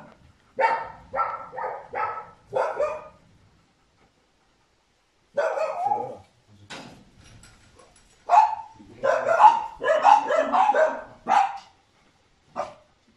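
A dog barking repeatedly in runs: about five barks in quick succession, a short pause, a couple more, then a fast, loud volley and a single last bark near the end.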